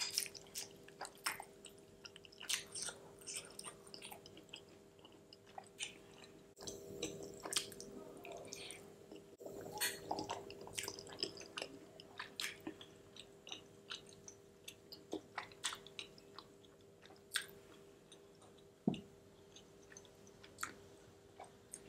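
Close-miked chewing of creamy macaroni and cheese: soft, wet mouth smacks and clicks at an irregular pace, with a faint steady hum underneath.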